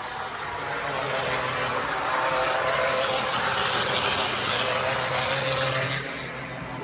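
HO scale model train running on the track: the small electric motor of a Life-Like steam locomotive whining steadily, with the wheels rattling over the rail joints. It grows louder as the train passes close by and drops about six seconds in.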